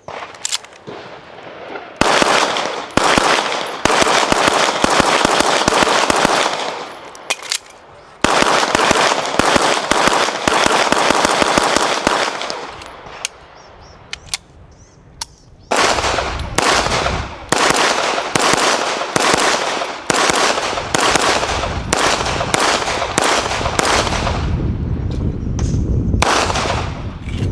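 Pistol gunfire: two long, rapid strings of shots, then a run of shots spaced about a second apart, some in quick pairs, through the second half.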